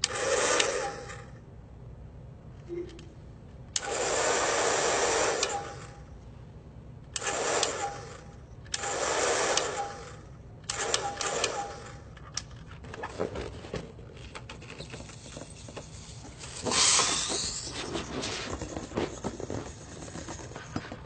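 Hand-held hair dryer switched on in short blasts of one to two seconds, about five times, each a steady rush of air with a faint motor whine. About seventeen seconds in comes a louder hiss with a rising whistle.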